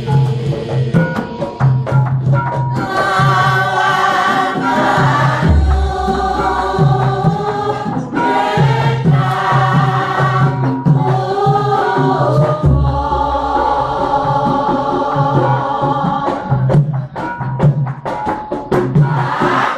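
Javanese gamelan accompanying a group of voices singing tembang in palaran style, the sung phrases broken by short pauses over a steady pattern of metallophone strokes. A deep gong stroke rings out about five and a half seconds in, again near the middle, and once more at the end.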